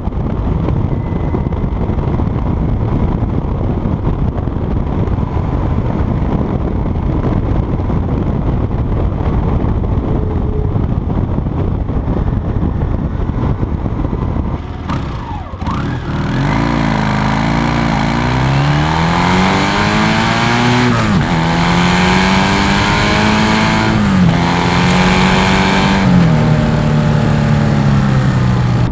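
Yamaha motorcycle under way. For the first half, heavy wind rushing over the microphone nearly buries the engine. About halfway through, the exhaust comes through clearly as the bike accelerates, the pitch climbing and then dropping back at each of several gear changes.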